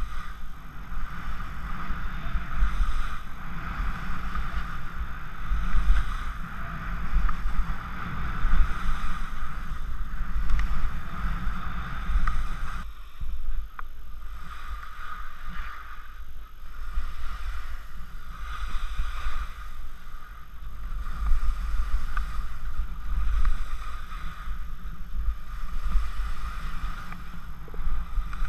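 Wind buffeting the microphone of a camera worn by a skier on the way down, with the hiss of skis sliding and turning over spring snow. The noise swells and eases with the turns, and its tone thins a little about halfway through.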